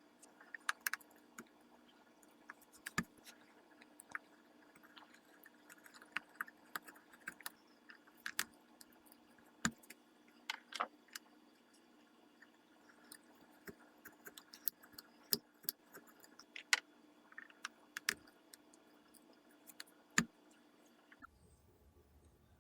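Faint, irregular small clicks and scrapes of hand-tool work in a walnut rifle stock while the trigger guard's inletting is fitted, over a faint steady hum.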